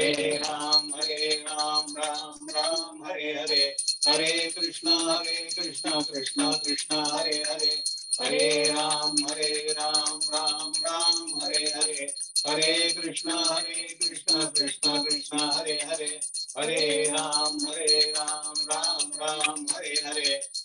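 A man singing a Hindu devotional aarti in long held notes, phrase after phrase with short breaks between, with a thin steady high-pitched ringing over the voice.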